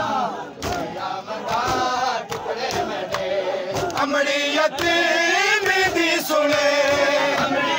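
Men chanting a noha of lament together, a lead voice with the group, from about four seconds in holding long notes in unison. Dull slaps of open hands striking chests (matam) keep a beat underneath.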